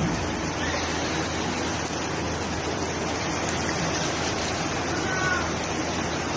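Rushing floodwater from an overflowing stream: a steady, unbroken rush of water. Faint distant voices come through briefly about five seconds in.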